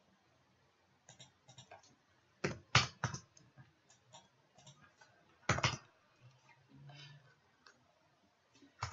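Computer mouse clicks and keyboard keystrokes, scattered and irregular, with a few sharper clicks in small clusters.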